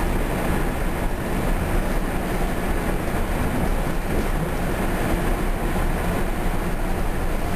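Steady running noise of a Bombardier BiLevel rail coach moving at speed, heard from inside the car: an even rumble and rush from the wheels on the track.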